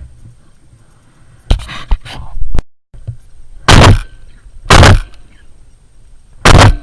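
Shotgun shots, loud enough to clip: one blast about a second and a half in, then three more, the second a second after the first and the third nearly two seconds later.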